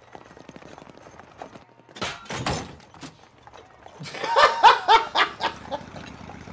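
Cartoon horses' hooves clip-clopping as a horse-drawn carriage passes, with loud knocks about two seconds in and a burst of a man's loud laughter about four seconds in.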